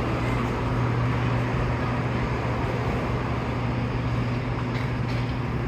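Steady low hum under a constant rush of wind noise on the microphone.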